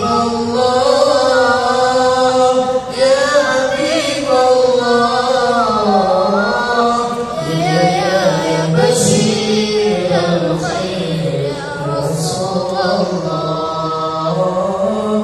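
A young boy's solo voice singing an unaccompanied, ornamented Islamic devotional melody into a handheld microphone, with long held notes that bend up and down in runs.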